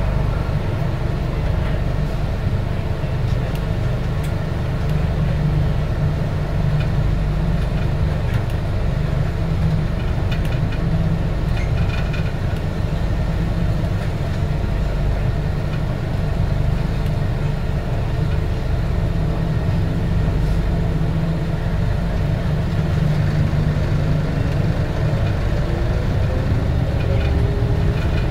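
Interior running noise of a Bombardier C801 (Innovia APM 100) rubber-tyred people-mover car travelling along its guideway: a steady low rumble with a constant tone. From about three-quarters of the way through, a motor whine rises in pitch as the car accelerates.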